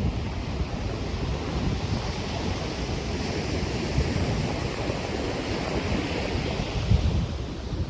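Ocean surf breaking and washing on the beach, with wind buffeting the microphone; the wash of a wave swells up about three seconds in.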